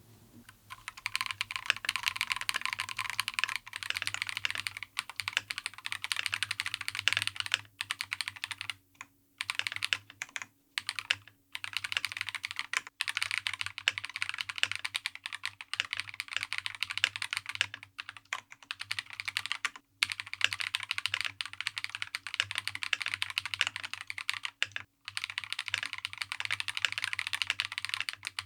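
Fast typing on a KiiBoom Phantom 81 V2 transparent mechanical keyboard: a dense run of key clicks with a few short pauses.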